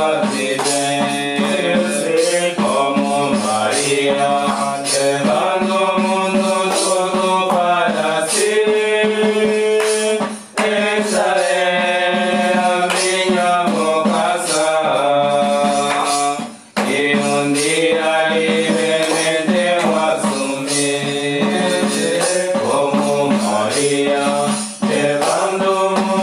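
Devotional song sung in Italian with instrumental accompaniment and a steady beat, breaking off for a moment twice.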